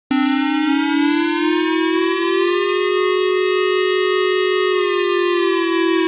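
Civil-defense-style warning siren starting abruptly, its pitch rising slowly over the first two to three seconds, holding, then falling away near the end. It is sounding an earthquake warning.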